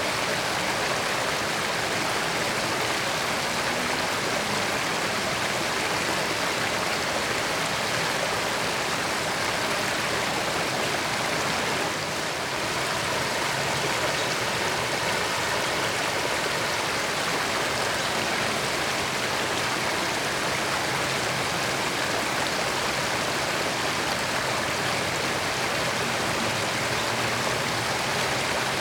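A creek's water running steadily over rocks, an even rushing with no pauses.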